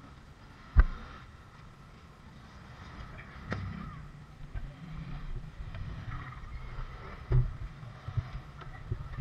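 Handling noise from the plastic housing and parts of a disassembled JBL Boombox being moved about on a bench, with a few sharp knocks, the loudest about a second in.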